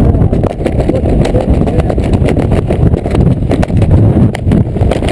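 Wind rushing and buffeting hard on a camera microphone under a tandem parachute in a steep turn, with scattered crackles from the gusts and flapping.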